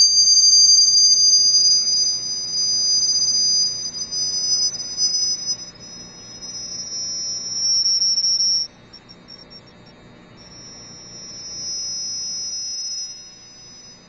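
Two high, pure electronic tones sounding together and slowly gliding toward each other until they merge into one about eight seconds in. They cut out for a moment, then come back more quietly and drift apart again.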